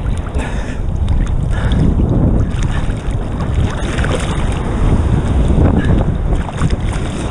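Seawater sloshing and splashing around a head-mounted camera held at the surface of choppy surf, with heavy low buffeting on the microphone and irregular splashes throughout.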